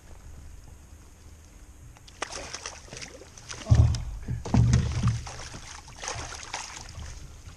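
Water splashing and sloshing beside a kayak as a hard-fighting trout is brought in and landed, with irregular splashes and clatters and a few heavy low thumps about halfway through, the loudest part.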